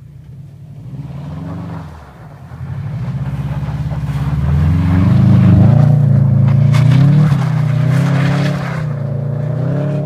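Subaru Impreza's flat-four boxer engine revving up and down as the car slides past sideways on snow with its wheels spinning and throwing snow. The sound builds to its loudest about halfway through, with some sharp crackles at its peak, then eases off as the car pulls away.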